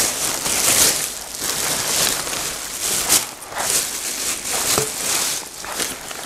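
Clear plastic packaging bag crinkling and rustling in irregular bursts as it is pulled off a rain jacket.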